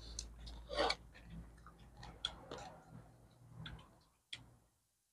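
A person chewing roast duck, with faint scattered clicks and small crunching noises; it falls to near silence for the last second.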